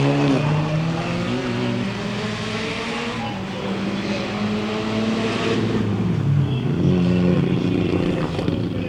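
Rally car engine running hard, its pitch stepping up and down several times with the gear changes and the throttle, as it passes on a stage.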